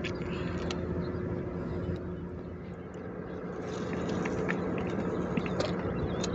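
A steady low engine hum, with a spinning rod being cast out about four seconds in.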